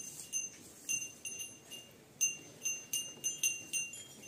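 Small metal bells, such as cattle neck bells, ringing in short, bright, irregular clinks, two or three a second, as calves move their heads while eating.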